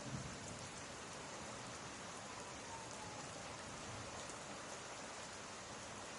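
Steady rain ambience, an added rain sound track laid under the voice recording, with an even hiss of falling rain and no distinct drops or thunder.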